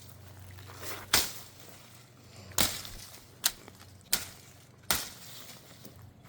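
A Cold Steel Mayhem folding knife being snapped open and shut, its blade and Atlas lock giving five sharp clicks about a second apart.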